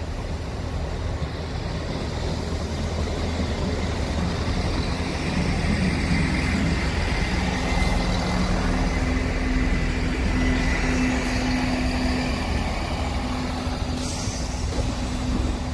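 Class 158 diesel multiple unit pulling into the platform and stopping, its underfloor diesel engines running with a steady low hum that grows louder as it comes alongside.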